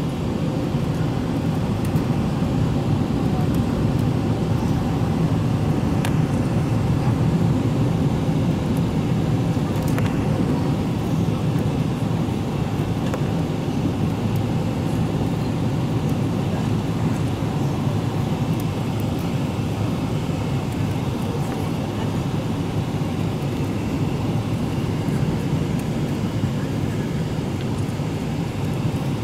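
Steady cabin roar of a Boeing 777-300ER on approach, heard inside the cabin by the wing: its GE90-115B engines and the airflow make a low, even rumble with a faint steady hum in it.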